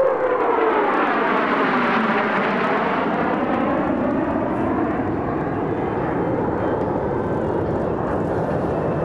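Jet engines of a formation of F-15 fighter jets passing overhead. A whistling tone drops in pitch during the first second as they go by, then a steady rushing jet noise that sweeps slowly in tone as the jets fly away.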